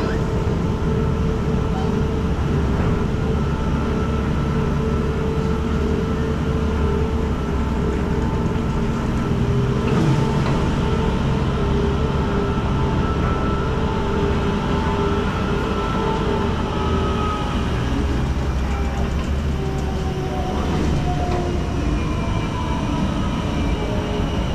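Gondola lift station machinery running: a steady mechanical hum and rumble as cabins travel through the station on the cable and drive wheels, with whining tones that slide in pitch in the last several seconds.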